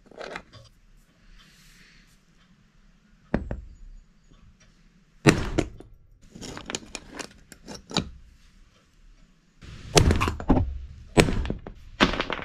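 Hammer blows on a hammer-type lug crimper, crimping a lug onto a heavy battery cable: sharp metal knocks, scattered at first, then a run of harder blows near the end.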